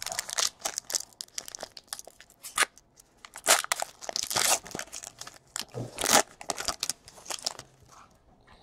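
A trading-card pack wrapper being torn open and crinkled by hand, in irregular crackly bursts that are loudest around the middle and die away near the end.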